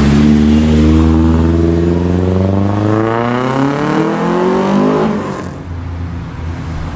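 Classic Datsun coupe's engine accelerating away, its note rising steadily in pitch for about five seconds. The loud note then drops away suddenly, leaving a fainter, steady engine hum.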